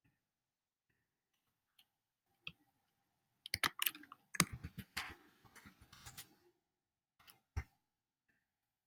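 Computer keyboard typing a quick run of keystrokes for about three seconds, with single mouse clicks before and after.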